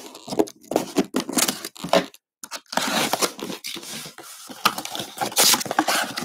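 Taped cardboard box being cut open with a box cutter and its flaps pulled apart: a run of scraping, tearing and crinkling noises with short pauses between them.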